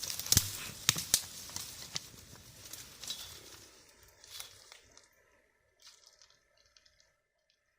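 Crunching footsteps in snow, fading away over the first few seconds and leaving it nearly quiet.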